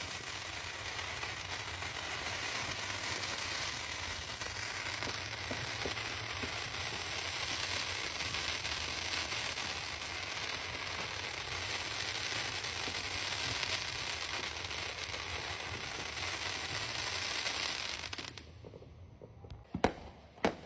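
Fireworks crackling densely and without a break, then cutting off suddenly about 18 seconds in, followed by two sharp bangs near the end.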